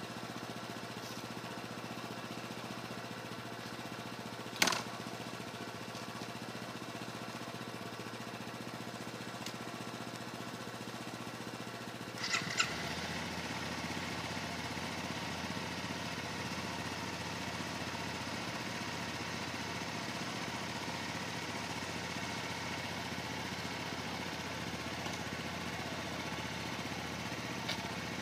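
Kawasaki motorcycle engine running at a steady, even speed. There is a sharp click about five seconds in and a short clatter of clicks about twelve seconds in, after which the engine sound gets a little louder and deeper.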